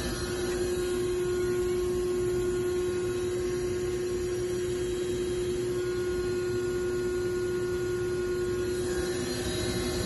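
Haas Mini Mill vertical machining center's spindle running at a set speed during a spindle test: a steady, even hum with one clear tone.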